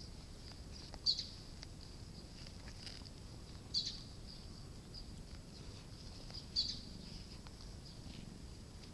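A steady, high-pitched chorus of insects, with three louder, short chirps at the same pitch, each roughly two and a half to three seconds apart.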